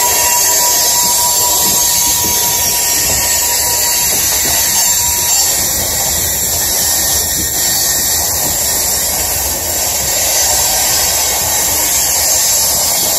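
Loaded coal train's cars rolling past, steel wheels grinding and hissing against the rail in a loud, steady rush. A thin squeal tone from the wheels fades out about four seconds in.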